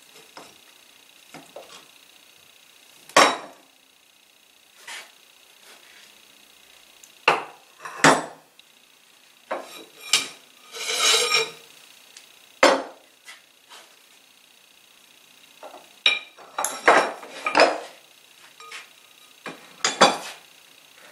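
Metal spacer tubes and hardware clinking and knocking as they are handled and set down on a workbench, in irregular sharp strikes a few seconds apart. There is a rattling scrape lasting about a second near the middle and a quick run of clinks late on.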